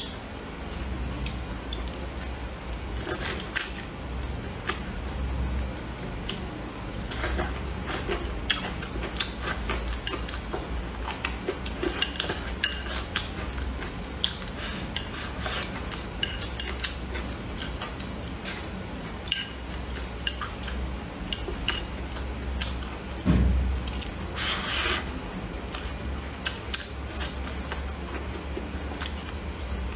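Chopsticks clicking and scraping against a ceramic bowl of rice and toppings in many short, irregular taps, mixed with close-up chewing and eating sounds.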